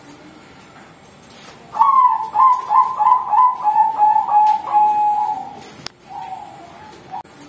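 Young zebra dove (perkutut bangkok) cooing: a rapid run of short coos that ends in a longer held note, from about two to five and a half seconds in. A softer, shorter call follows near the end.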